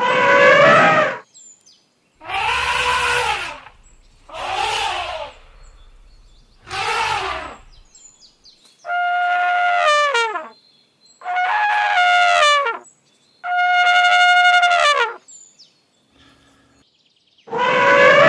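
Elephants trumpeting: a series of about eight separate loud calls, each one to two seconds long. The longer calls in the middle hold a steady pitch and drop away at the end.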